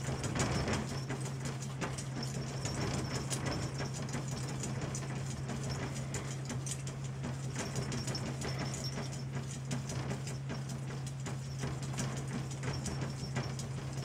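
A cat's front paws patting and scraping rapidly against a glass door pane: an irregular run of light taps, over a steady low hum.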